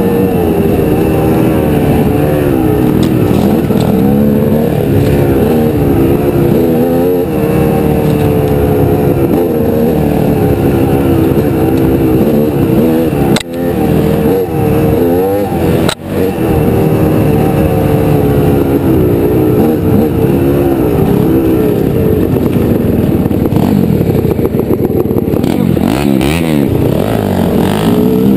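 Honda CR250 two-stroke dirt bike engine running on a trail ride, its pitch rising and falling with the throttle. The sound drops out sharply twice, briefly, about halfway through.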